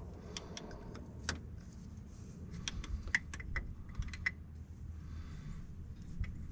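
Scattered light metallic clicks and clinks of a wrench and metal fittings as sensors are fitted and snugged down on the excavator's hydraulic lines, over a low steady rumble.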